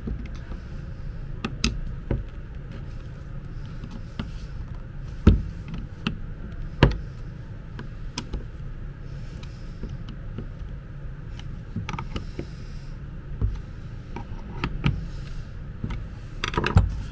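Hand-tool handling sounds: a screwdriver turning the screws into a cordless drill driver's plastic housing, then scattered clicks and a few sharp knocks as the tools are handled and set down on the workbench. A quick run of clicks comes near the end. A steady low hum sits underneath throughout.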